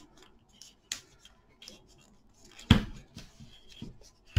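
Hands wrapping tape around a joint of a willow frame: small crackles and rustles of the tape, with one sharp knock of the willow frame about two-thirds of the way through.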